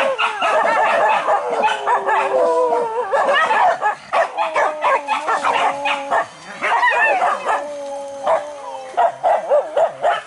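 A pack of boar-hunting dogs barking, yelping and howling, several voices overlapping, with long drawn-out baying notes among short sharp barks.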